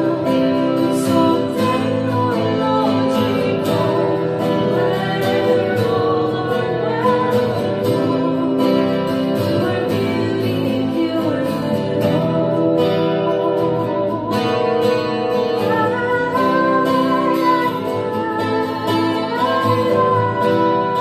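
A woman singing with acoustic guitar accompaniment, holding long notes with vibrato.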